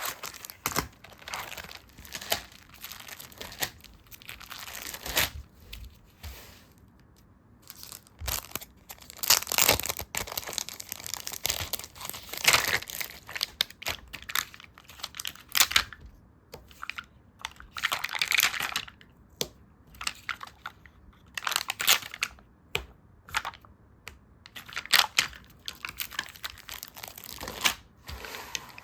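Stickers and paper being handled for sticker journaling: irregular crinkling, rustling and peeling sounds with short sharp ticks and brief pauses between.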